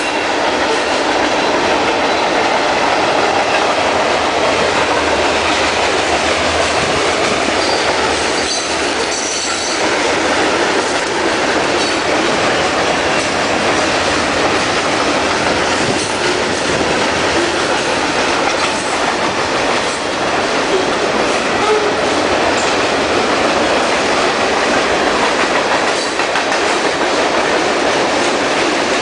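Freight train cars rolling past close by, a loud, steady rumble of steel wheels on rail with clickety-clack over the rail joints. Brief high wheel squeals come about eight to ten seconds in.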